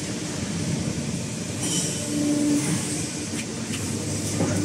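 CNC hydraulic press brake running, its hydraulic pump and motor giving a steady mechanical rumble as the ram with its punches moves over the V-die. A steady whine comes in about two seconds in and again near the end.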